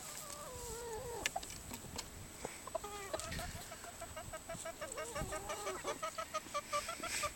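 Bantam chickens calling: a drawn-out call that falls in pitch in the first second, then from about three seconds in a fast, even run of short clucks, about five a second.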